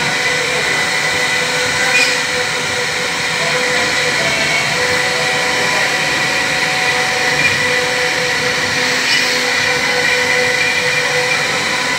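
CNC router spindle running with a steady high whine while its bit carves a relief into a wooden panel, the cutting noise continuous, with a couple of brief ticks.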